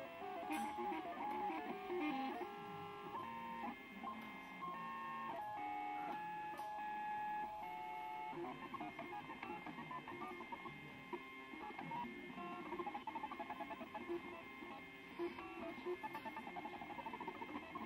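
MakerBot Thing-O-Matic 3D printer's stepper motors singing as the print head moves: steady tones that jump to a new pitch every fraction of a second, some gliding up and down, then from about eight seconds in a quick warbling flutter of short tones.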